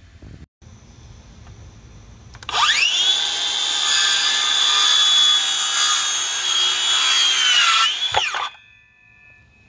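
Makita 18V LXT brushless sub-compact 6-1/2-inch circular saw spinning up with a rising whine about two and a half seconds in, cutting through a wooden board at a steady high pitch for about five seconds, then winding down.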